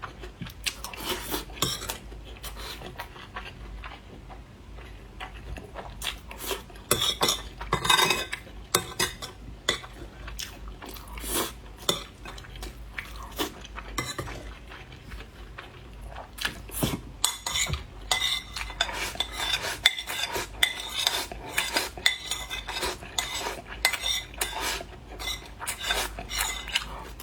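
Eating utensils clinking and scraping against a dish in irregular, frequent clicks while a meal of fried rice is eaten.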